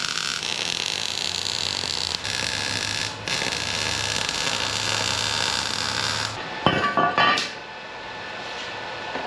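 Welder running a steady, hissing bead on steel pipe, with two short breaks, stopping about six seconds in. A brief metallic clatter follows.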